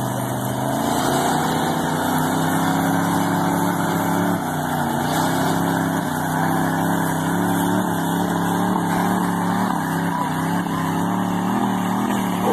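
Two lifted pickup trucks' engines revving hard under heavy load as they pull against each other in a tug-of-war. The engine pitch climbs about a second in and then holds high, wavering, as the tyres spin.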